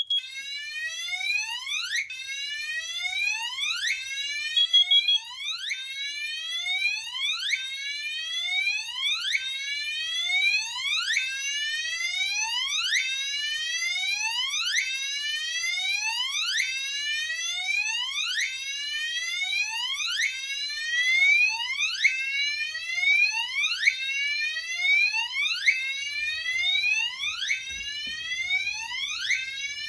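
Gentex Commander 3 alarm horn sounding a carbon monoxide alarm: a repeating sweeping whoop tone, roughly once a second. A short high beep is heard at the start and again about five seconds in.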